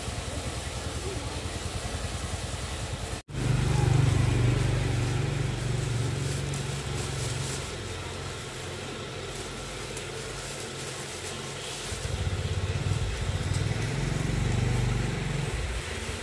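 A motor vehicle engine running with a steady low pulse. After a brief dropout about three seconds in, the sound comes back louder and uneven.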